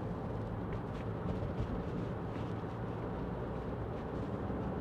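Interior noise of a 2016 Mitsubishi Shogun 3.2 DI-D diesel on the move: a steady low rumble of engine and tyres heard from inside the cabin.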